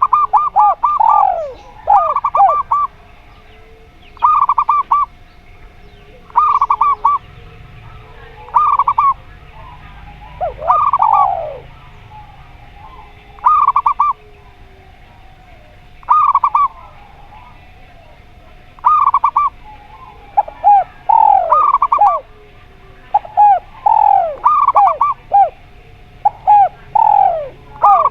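Zebra dove and spotted dove cooing in turn. Short phrases of rapid notes repeat every two seconds or so, and falling, sweeping coos join in more often near the end.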